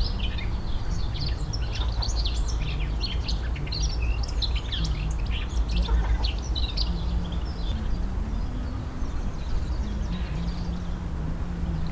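Small songbirds chirping and twittering in quick, overlapping calls, thinning out after about eight seconds, over a steady low rumble and a faint wavering low hum.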